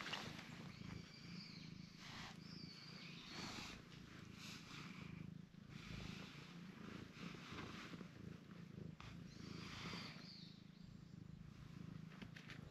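Cream-coloured cat purring faintly and steadily while it is stroked, with soft rustling of fur under the hand every second or two.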